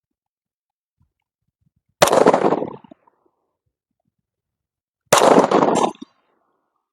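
Two 9mm shots from a Glock 45 pistol, about three seconds apart, each with a short echo that dies away in under a second.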